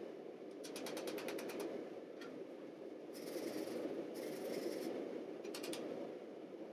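Hand hammer striking a red-hot pattern-welded sword bar on a steel anvil, heard as quick runs of sharp clicks over a steady low rumble, with two short hissing passages in between.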